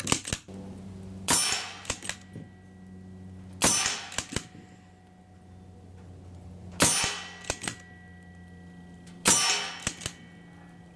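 Daystate Delta Wolf PCP air rifle fired four times, a few seconds apart. Each sharp crack is followed within half a second by short metallic clicks and clangs of the pellet striking steel targets.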